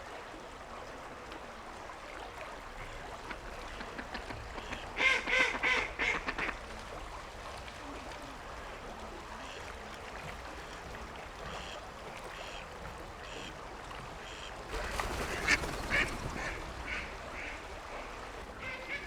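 Ducks quacking, a quick run of loud calls about five seconds in and another near the end, with scattered single quacks between. The steady rush of the river runs underneath.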